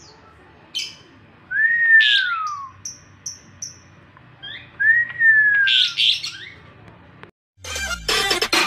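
A caged Javan pied starling (jalak suren) calls twice with a loud whistle that rises and then falls, each with a harsh rasping note, and a quick run of four short high chips between them. Near the end the bird stops and a sweeping electronic transition sound begins.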